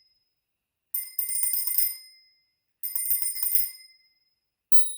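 A cheap bicycle bell rung in two loud bursts of rapid repeated dings, each about a second and a half long. Near the end a different bell, the Spurcycle, is tapped once and rings on with a clear, slowly fading tone.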